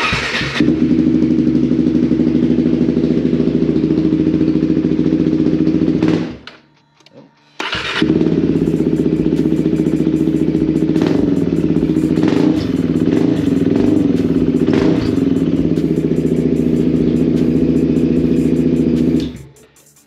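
KTM 390 Adventure's single-cylinder engine, fitted with a very loud exhaust and running with its intake snorkel removed, starts and idles. It dies about six seconds in, stalling because it is cold, is restarted a second or so later, idles again and stops near the end.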